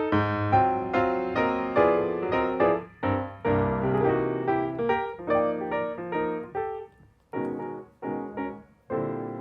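Background piano music: a string of notes at about two a second, thinning to a few separate notes near the end and closing on a held chord.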